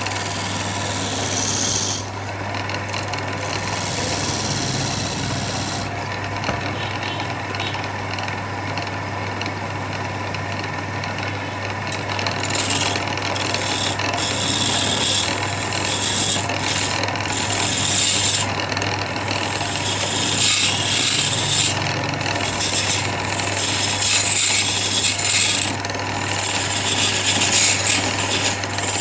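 Wood being abraded, a continuous rasping and rubbing against the surface that comes and goes in stretches, over a steady low hum.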